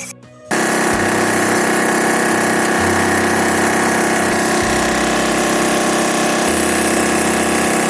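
An engine running steadily at one speed, loud and unchanging, starting abruptly about half a second in.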